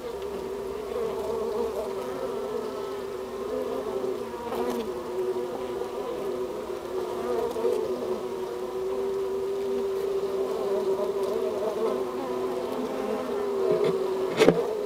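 Honeybees humming inside the hive: a dense, steady buzz from many bees on the comb close to the microphone. A single sharp knock comes near the end.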